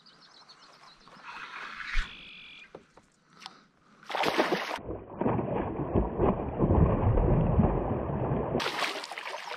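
Northern pike thrashing and splashing at the water's surface beside a kayak, starting about four seconds in after a quieter stretch. For several seconds the splashing plays back slowed down, deep and drawn out, before returning to normal speed near the end.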